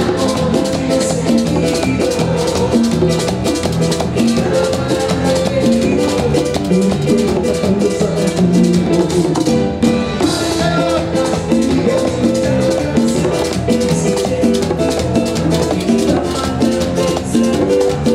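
A live band playing Latin dance music, with a steady drum-kit and hand-percussion beat under sustained instrument notes and a brief break about ten seconds in.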